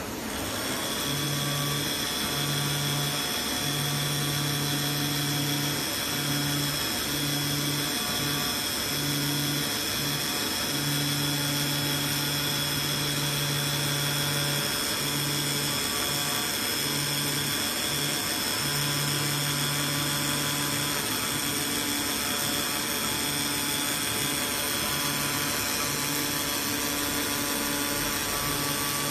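AOKE DCZ70 CNC flatbed cutter plotter running as it cuts velvet cloth: a steady high-pitched whine, with a low hum that switches on and off in stretches of a second or two as the cutting head works. The machine sound comes up right at the start.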